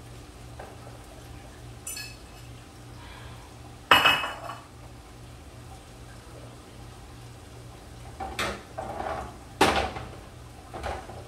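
Metal cookware and utensils clattering on the stovetop: a ringing clink about two seconds in, a loud ringing clang about four seconds in, then several more knocks near the end as a baking sheet and pans are handled.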